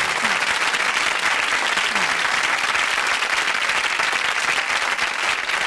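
Television studio audience applauding, steady, dense clapping.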